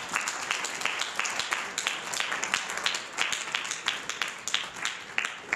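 Applause from a small audience: individual hand claps, each one distinct.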